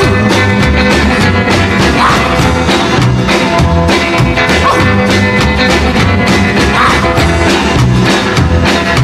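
Rock and roll band music with a steady beat.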